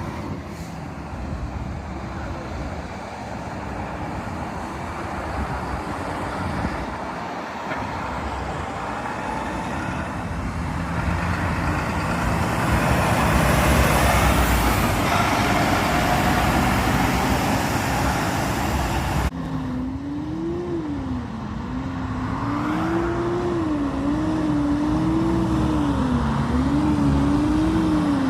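Diesel truck engine running, with a hiss that swells and fades near the middle; after an abrupt break about two-thirds of the way in, the engine's pitch rises and falls repeatedly.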